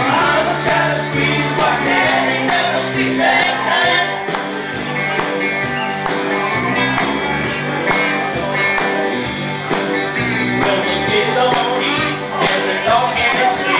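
Live band playing an instrumental intro, with sustained melody notes over a steady strummed beat.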